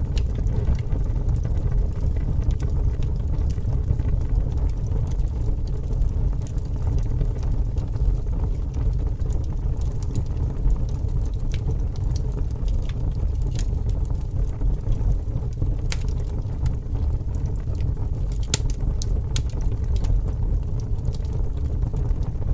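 Bonfire burning, its wood crackling with scattered sharp pops that come thicker about two-thirds of the way through, over a steady low rumble.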